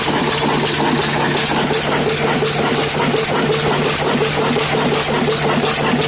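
Old stationary diesel oil engine running steadily, with a fast, even beat.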